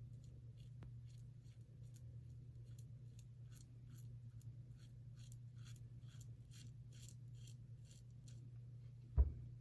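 Double-edge safety razor with a Wilkinson Sword blade scraping whiskers through shaving-soap lather in short, quick strokes, about two or three a second. A single thump near the end.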